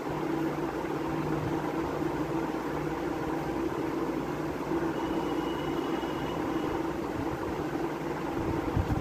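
A steady low mechanical hum with an even hiss. A faint thin high tone comes in for just under two seconds past the middle.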